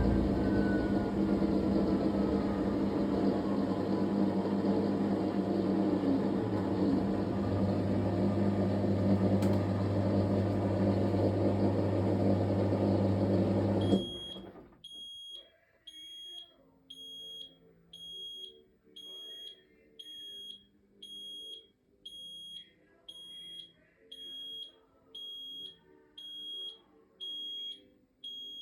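Fisher & Paykel MW059NZ washing machine running loudly with a steady hum and a slowly falling whine, stopping suddenly about halfway through. The machine then beeps steadily about once a second, which is typical of its end-of-cycle signal.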